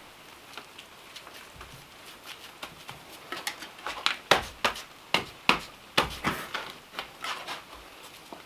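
Stones knocking and scraping against each other as they are set by gloved hands in a row along the base of a wall: a quick run of sharp clicks and knocks, busiest in the middle of the stretch, a few with a dull thud.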